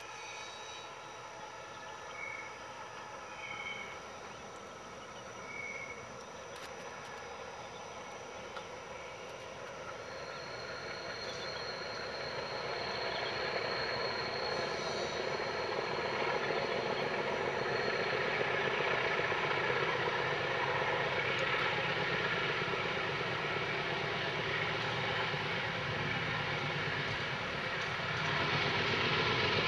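GE diesel-electric locomotives, a class 33 (U20C) leading two class 35s (U15C), working a freight train, their engines growing steadily louder as they approach, with a high steady whine for several seconds midway.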